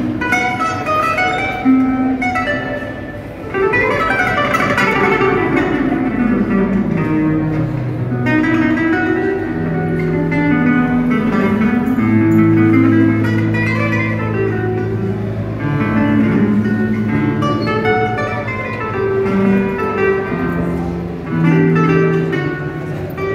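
Acoustic guitar played through a small combo amplifier: picked melodic lines, with a long falling run about four seconds in, then held low notes and chords through the rest.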